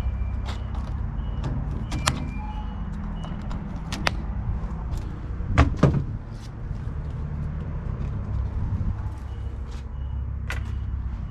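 Scattered clicks and knocks of a window cover being fastened with zip ties inside a van, with two louder thumps about halfway through, over a steady low rumble.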